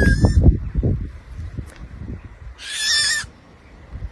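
A bird of prey screeching in short, harsh calls: one right at the start and another about two and a half seconds in, each under a second long. A low, muffled noise runs underneath in the first second.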